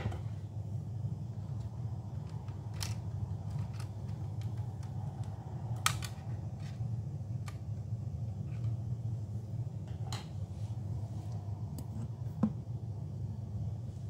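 A few short, sharp clicks and taps of small hand tools and laptop parts being handled and set down on a workbench, the loudest about six seconds in and near the end, over a steady low hum.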